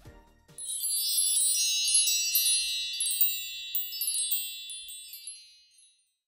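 Shimmering chime sound effect for an animated logo: many high, overlapping bell-like notes that come in about half a second in, ring together, then fade away near the end.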